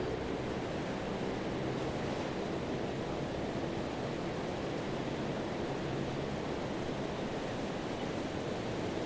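Pacific Ocean surf washing onto a sandy beach, a steady rush of breaking waves and foam.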